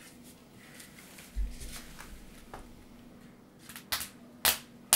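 Three sharp hand slaps about half a second apart near the end, fists pounded onto open palms to count in a round of rock-paper-scissors. Before them, faint rustling and a dull thump a little over a second in.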